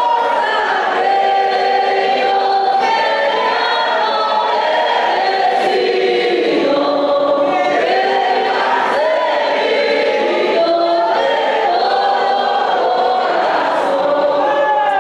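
A church congregation singing a hymn together in Spanish, many voices holding and moving between sung notes.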